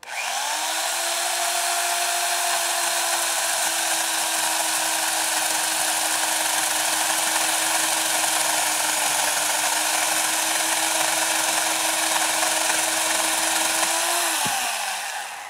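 Electric chainsaw started on the trigger and run at a steady full speed, cutting through a dead branch. About fourteen seconds in it is released, and the motor's pitch drops as it winds down and stops.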